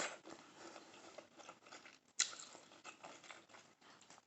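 Close-miked chewing: soft wet clicks and smacks of a mouth working food, with a sharper click about two seconds in.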